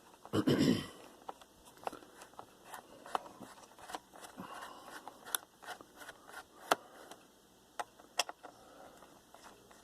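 Hand work on a laptop's underside: scattered light clicks and small scrapes of a screwdriver and the plastic cover being handled, with a brief louder rustle of handling about half a second in.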